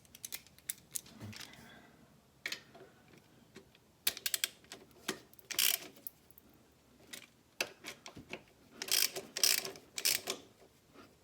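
Hand ratchet wrench clicking in short runs as bolts are tightened down, with the busiest runs about four seconds in and again about nine seconds in.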